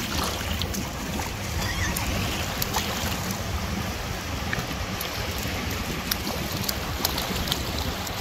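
Shallow sea water washing at the shoreline, with wind rumbling on the microphone and brief splashes now and then from a toddler's hands slapping the water.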